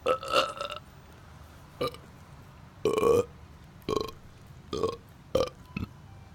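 A string of about seven short burps, one after another. The first and the one about three seconds in are the longest and loudest, and the last is faint.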